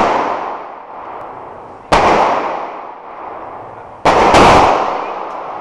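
Handgun shots in an indoor range, each followed by a long echoing decay: one about two seconds in, then two in quick succession about four seconds in.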